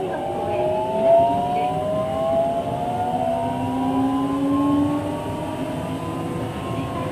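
Kanazawa Seaside Line 2000-series train accelerating: the whine of its Toyo IGBT-VVVF inverter and traction motors rises steadily in pitch as several parallel tones over steady running noise.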